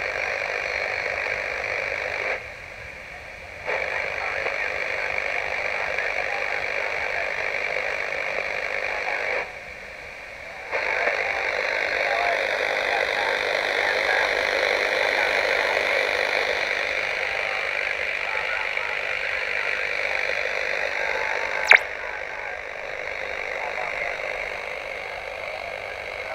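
14 MHz direct-conversion shortwave receiver hissing with band noise and static through its audio, a weak signal buried in it. The hiss drops away twice for about a second, and a single sharp click comes late on.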